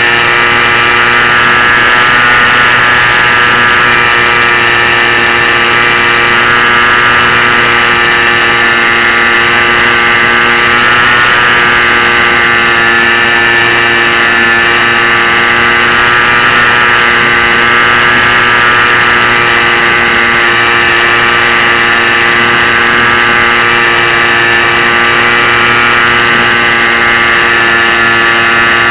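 Electric motor and propeller of a HobbyZone Champ RC airplane running steadily in flight: a loud, even whine with many overtones, heard close up from a keychain camera mounted on the airframe.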